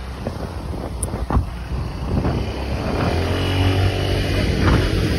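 Street traffic noise with wind on the microphone. About three seconds in, a motor vehicle's engine swells as it passes close by, then fades.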